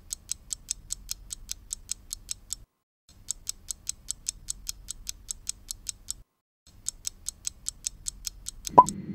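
Countdown timer sound effect: fast, even clock ticking, about seven ticks a second, in three runs broken by short pauses. A brief rising tone sounds near the end.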